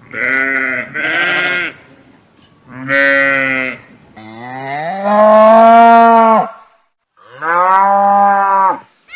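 Cattle mooing: five separate moos, the first two short and back to back, the fourth a long one of about two seconds.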